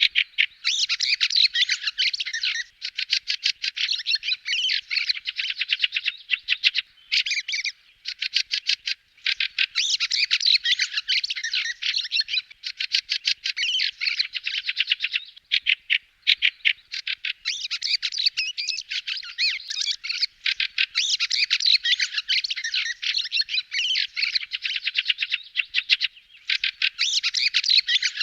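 Fieldfares (Turdus pilaris) giving harsh chattering 'chack-chack' calls in rapid runs. Long bouts are broken by brief pauses.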